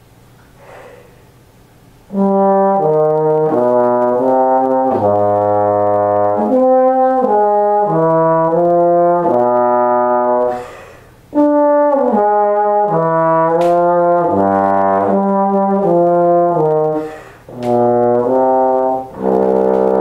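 Bass trombone played with a Greg Black 1G mouthpiece, heard from some distance away from the microphone. About two seconds in it starts a phrase of separate notes stepping up and down. There is a short breath break about halfway through and two brief gaps near the end.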